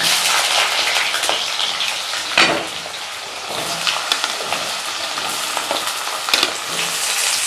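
Potato pieces sizzling as they fry in hot oil in a kadai, a steady hiss, with a few sharp knocks from stirring.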